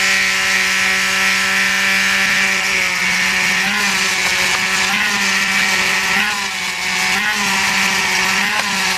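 Small electric orbital sander running steadily with a high motor whine and a grinding hiss as it scuffs the painted spokes of a motorcycle wheel. Its pitch wavers slightly a few times as it is worked over the wheel.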